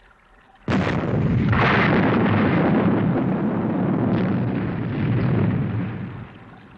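A sudden explosive blast about a second in, running on as a loud rushing rumble for about five seconds before it dies away: a television sound effect for the enemy submarine blowing up as its escape unit jets clear.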